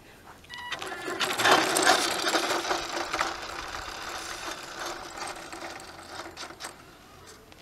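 Scratch-built battery-powered RC car's motor and gears whirring as it drives on asphalt. It is loudest about a second and a half in as it passes close by, then fades as it drives away.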